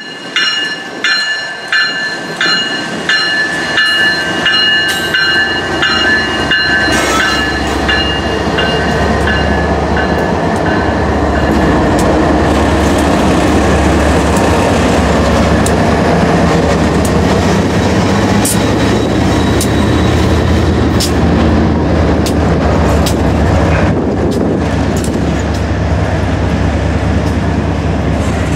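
A bell rings about twice a second and fades out about nine seconds in. Meanwhile a consist of BNSF diesel locomotives passes close by with a steady low engine rumble, which grows louder and fuller from about twelve seconds in, along with the clatter of wheels on the rail.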